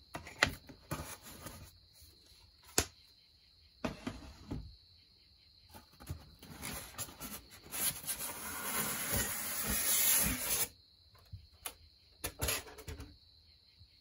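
Handling of ceiling-fan packaging: wooden fan blades knock against each other and the box a few times, then a styrofoam packing insert is dragged out of a cardboard box with a long scraping rub that grows louder and stops suddenly. A few light knocks follow.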